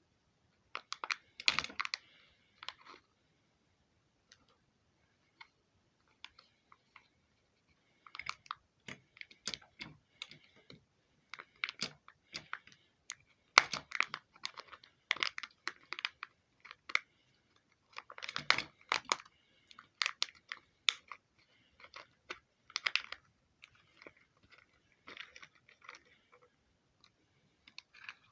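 Bursts of crackling, crinkling clicks from Kinder Surprise egg packaging being handled and opened, with a quieter stretch of a few lone clicks early on.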